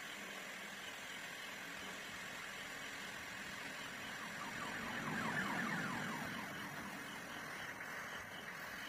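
Gas blowtorch flame hissing steadily against an apple's skin. Around the middle a louder swell with wavering pitches builds and fades over about two seconds.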